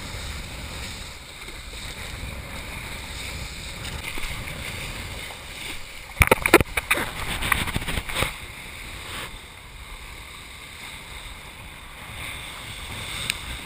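Wind buffeting a chest-mounted action camera's microphone and water rushing past a kiteboard riding waves. A burst of loud splashing comes about six to eight seconds in.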